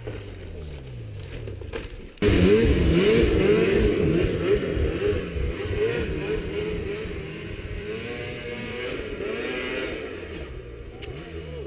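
Snowmobile engine at full throttle climbing a steep snow hill, its pitch rising and falling over and over as the throttle is worked. It comes in suddenly and loud about two seconds in, after a quieter stretch of engine sound that falls in pitch, and eases off near the end.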